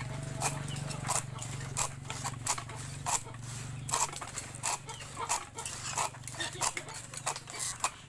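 Large knife blade chopping through the ends of dried oil-palm frond slats on a rolled blind: a run of sharp, irregular snaps about two a second, trimming the slat ends flush as the finishing step.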